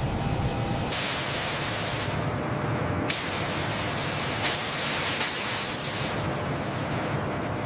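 Hissing spray that starts and stops abruptly several times, each burst opening with a sharp edge, over a steady low rumble.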